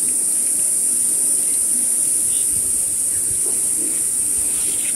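Steady high-pitched hiss, with a few faint soft knocks and murmurs beneath it.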